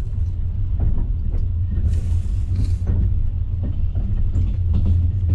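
Passenger train running, heard from inside the carriage: a steady low rumble with faint, irregular knocks and a short hiss about two seconds in.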